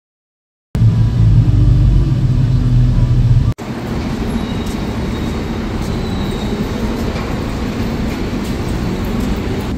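Road traffic after a moment of silence: a loud, deep rumble of vehicle engines in stop-and-go traffic for about three seconds. It changes suddenly to a steadier hiss of city street traffic.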